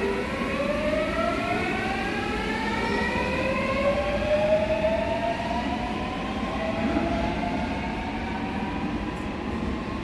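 Seoul Subway Line 8 electric train pulling out of the station, its inverter-driven traction motors whining in several overlapping tones that rise steadily in pitch as it gathers speed, over the rumble of the wheels on the rails.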